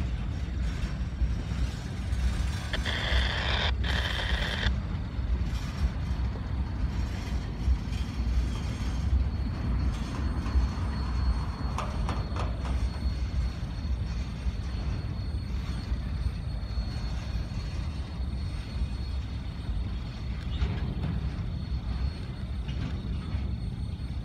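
Freight train of boxcars and covered hoppers rolling past: a steady low rumble of the cars' wheels on the rails, with a brief high squeal about three seconds in.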